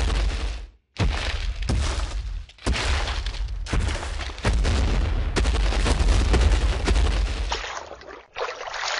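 Loud, distorted noisy sound effects with a heavy low rumble, coming in several separate stretches that each start abruptly and are cut off or fade away.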